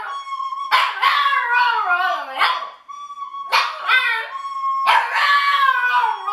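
Shih Tzu howling along to a plastic recorder: three wavering howls that slide down in pitch. Between them the recorder holds a steady high note.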